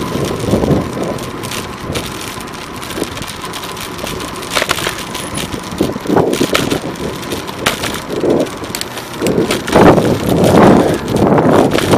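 Wind buffeting the microphone of a bicycle-mounted camera while riding, with a few sharp clicks and knocks from the bike over the road surface. The buffeting grows louder and heavier from about three-quarters of the way through.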